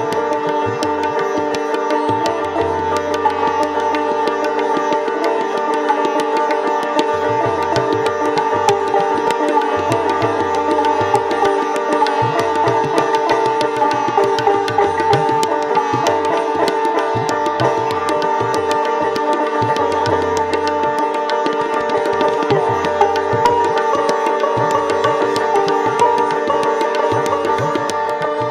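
Sitar and tabla playing Hindustani classical music: a dense run of plucked sitar notes over the ringing of its drone and sympathetic strings, with tabla strokes throughout and low, sustained bayan (bass drum) strokes in several short spells.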